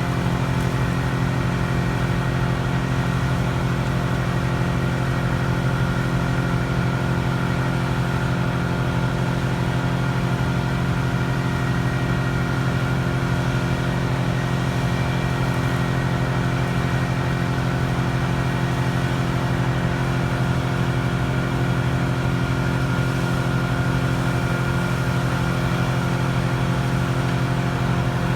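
A 45-ton crane's engine running at a steady, unchanging speed.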